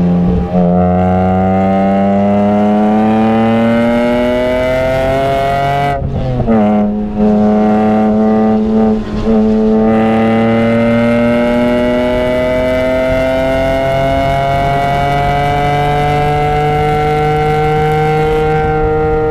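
BMW E46 M3's S54 straight-six, heard from inside the cabin, pulling hard and rising in pitch through second gear. About six seconds in there is an upshift to third with a sharp drop in pitch and a couple of brief dips just after. It then climbs steadily toward about 6,000 rpm.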